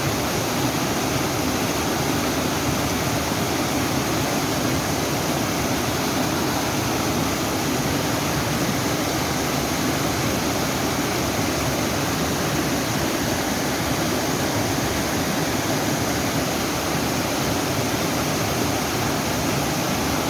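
A small mountain waterfall pouring steadily over rocks into a stream, a constant rushing of falling water.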